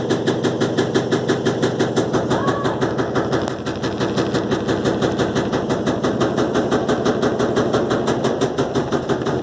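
Electrolux LTE12 top-load washing machine on its spin cycle, knocking rapidly and evenly, about five knocks a second. The tub is spinning off balance with the clothes bunched on one side, and the drain hose is hitting the spinning basket.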